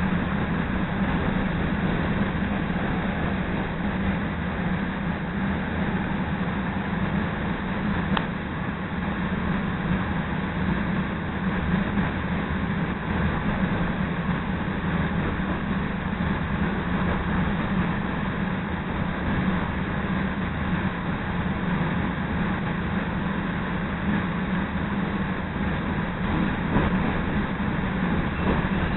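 CTA Red Line rapid-transit train running along the track, heard from inside the car: a steady rolling noise of the moving train, with one sharp click about eight seconds in.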